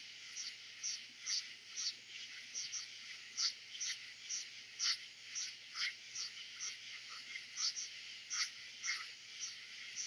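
Dense night chorus of katydids, crickets and frogs from forest: a steady high hiss of insect song with many short pulses repeating about twice a second, overlapping from different callers.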